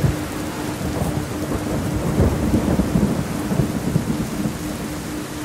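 Steady rain with thunder rumbling low, swelling from about two to four seconds in. Under it runs a faint pulsing hum, the recording's 4 Hz theta tone.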